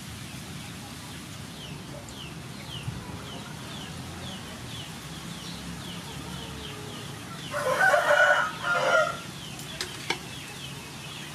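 A rooster crows once, loud and in two parts, about eight seconds in. Under it runs a steady series of short, high, falling chirps, about three a second.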